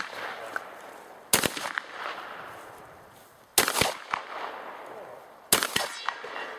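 Shotgun fired three times, roughly two seconds apart. Each shot cracks sharply and trails off in echo.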